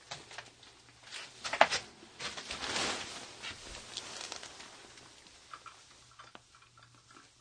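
Faint rustling with scattered light clicks and taps, the longest stretch of rustling about two to four seconds in.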